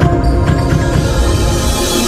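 Electronic background music with heavy bass and sustained synth tones.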